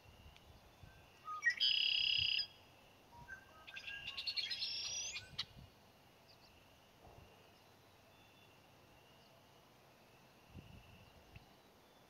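Male red-winged blackbird singing: a loud buzzy phrase about a second and a half in, then a second phrase of quick notes ending in a rising trill a couple of seconds later.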